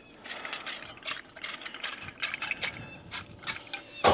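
Packaging and small accessory parts being handled: irregular rustling with light clicks and rattles.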